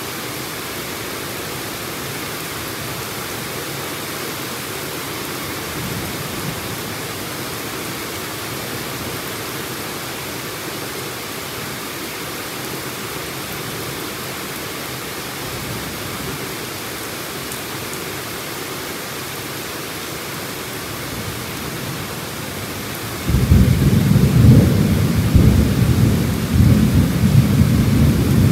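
Heavy rain falling steadily. About 23 seconds in, a loud low rumble of thunder starts suddenly and rolls on.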